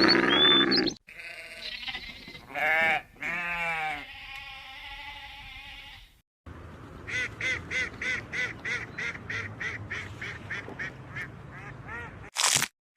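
Farm animals bleating: two wavering bleats, then a run of short repeated calls, about three a second, with sharp crunching sounds right at the end.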